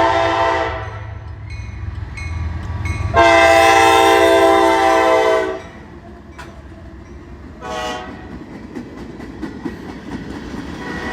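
Freight locomotive's air horn sounding: a long blast that cuts off just under a second in, a second long blast from about three seconds to five and a half, then a short toot about eight seconds in. Between and after the blasts the train rumbles past, its wheels clicking over the rail joints.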